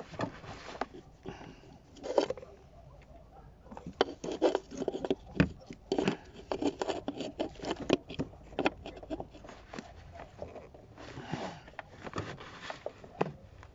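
Hand fumbling among plastic parts and the wiring harness in a cramped engine bay: irregular clicks, taps and scraping, busiest in the middle, while working to reach the injection pump controller's connector.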